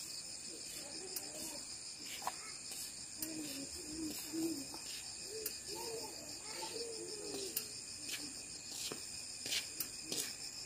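Steady, high-pitched chorus of insects trilling, with faint, low, warbling calls in the middle and a few light clicks near the end.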